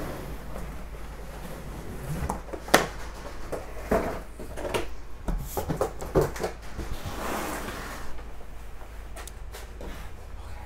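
Knocks and thumps of a large cardboard box being handled and worked open, with one sharp knock about three seconds in, a run of smaller knocks after it, and a short scrape of cardboard about seven seconds in.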